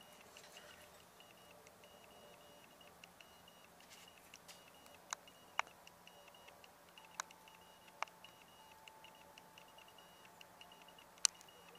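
Quiet background broken by a handful of sharp, isolated clicks, the loudest near the end, over a faint steady high tone that keeps cutting in and out.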